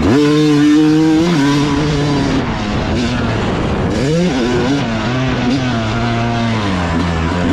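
Yamaha dirt bike engine running hard under throttle: the revs shoot up at the start, step down a couple of times, climb again about four seconds in, and fall away near the end.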